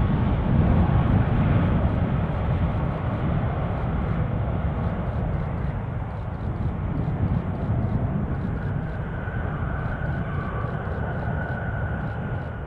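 Boeing 757-200's Rolls-Royce RB211 engines rumbling after landing, the deep noise slowly fading as the jet rolls away, with a faint thin whine in the later part.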